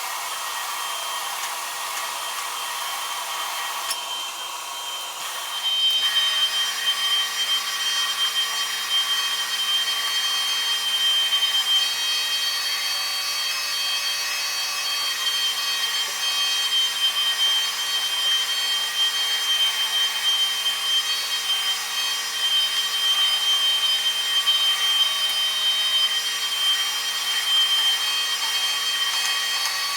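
Carpet-cleaning equipment running. A steady vacuum-like rush gives way, about five seconds in, to a louder motorized brush machine with a steady motor hum and an uneven scrubbing sound as it works the carpet.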